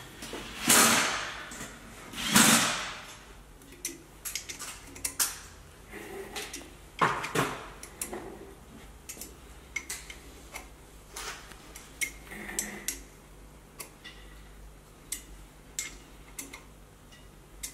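Small metallic clicks and taps as steel cylinder head studs are turned into a Subaru EJ22 engine block with a hex key. Three louder, noisy sounds of about half a second each come in the first seven or eight seconds.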